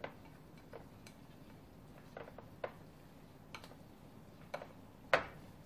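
Chopsticks clicking against a ceramic bowl while mixing noodles into their sauce: faint, irregular taps, with a louder one about five seconds in.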